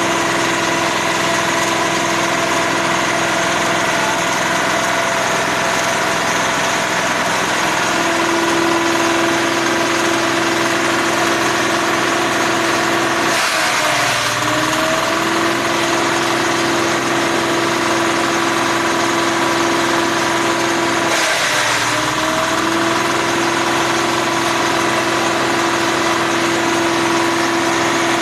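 Single-cylinder diesel engine running steadily, driving a grass chopper with a steady whine. Twice the pitch dips briefly and climbs back up, each time with a short rush of noise.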